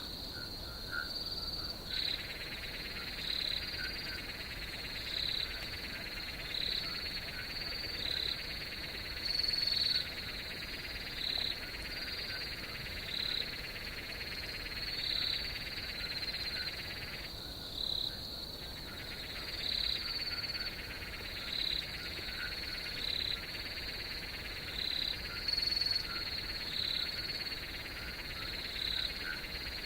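Night chorus of frogs and insects: a steady high insect trill with a call repeating every one and a half to two seconds over a dense chorus, which drops out briefly near the start and again a little past halfway.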